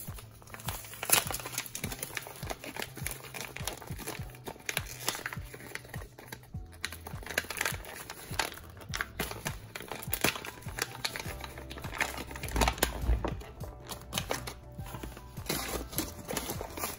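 A stiff foil-lined bag of ground coffee crinkling and rustling in the hands as it is handled, in quick irregular crackles, over background music.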